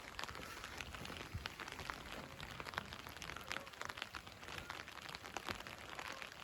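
Steady light rain, with many separate drops ticking close by.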